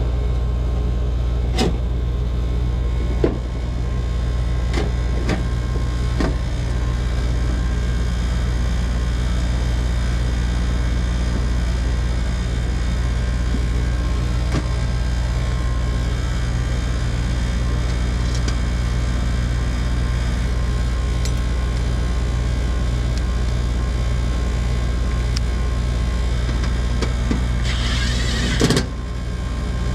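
Heat pump outdoor unit running in cooling mode, its compressor and condenser fan giving a steady low hum. A few sharp clicks come in the first several seconds, and a brief rushing burst comes near the end.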